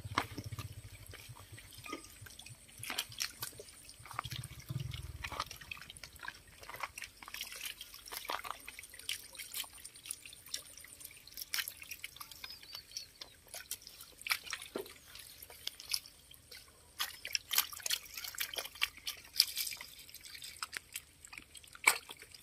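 Many small, irregular splashes and wet flicks of water: a dense crowd of fish thrashing in very shallow water.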